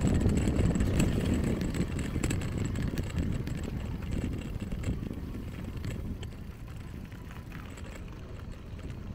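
Wind rushing over the microphone of a handlebar-mounted camera, with tyre rumble from a Bridgestone TB1e electric-assist bicycle rolling along a paved path. Occasional light clicks and rattles come through. The rushing grows quieter through the second half.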